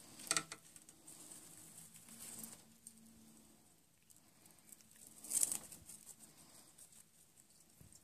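Two brief rustling handling noises, about half a second in and again about five seconds in, as feeding tongs are worked in the plastic enclosure; otherwise quiet.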